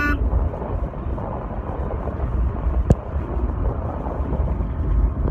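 Steady low rumble of a vehicle's engine and tyres, heard from inside the cabin while driving, with a single sharp knock about three seconds in.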